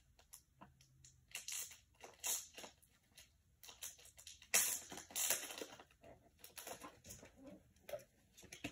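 Clear plastic bag holding trading cards crinkling and rustling in irregular bursts as it is opened, loudest about halfway through.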